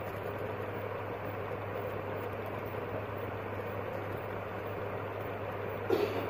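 Steady low hum and hiss of room background noise, with a brief knock near the end.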